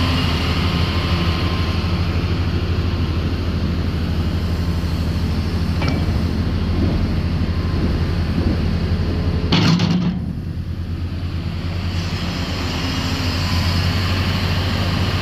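Hitachi 270LC excavator's diesel engine running steadily with a low hum as the machine works its hydraulics. About ten seconds in, a brief loud rush as the big bucket dumps fill sand into the truck bed.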